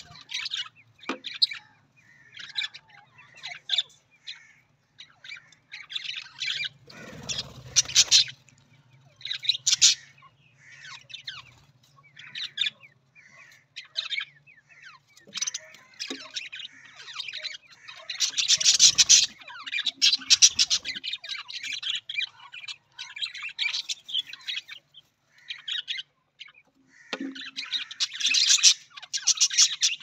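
A group of budgerigars chattering and chirping without pause, a dense mix of short chirps and warbles, swelling into louder bursts of chatter several times.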